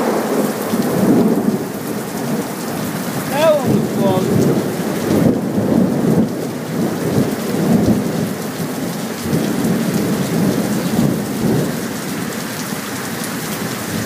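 Heavy rain pouring down with thunder rumbling on and off in a thunderstorm.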